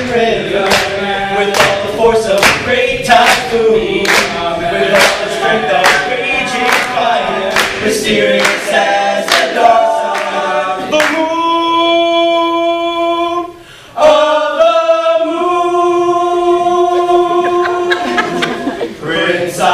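Male a cappella group singing in harmony over a steady vocal-percussion beat. About eleven seconds in, the beat stops and they hold a long chord, break briefly, then hold a second long chord.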